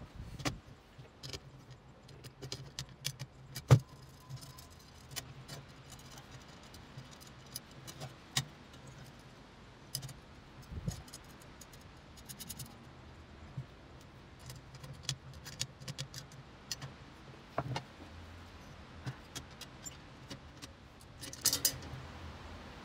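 Glass chandelier panels clinking and tapping against the brass-coloured metal frame as they are slotted in: a scattered series of light clicks and knocks, one sharper knock a few seconds in. A steady low hum sits underneath.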